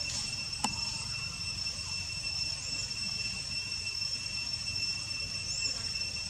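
Steady high-pitched insect drone over a low background rumble, with one sharp click just over half a second in and two short faint chirps later on.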